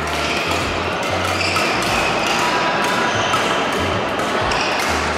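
Background music with a bass line of long held notes.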